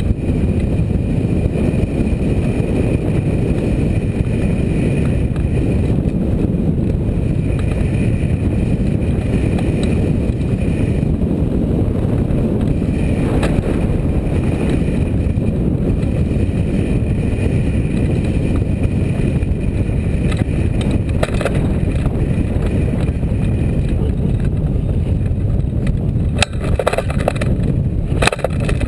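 Strong wind buffeting the microphone: a loud, steady low rumble of air rushing past a hang glider in flight. Near the end come a few knocks and rustles.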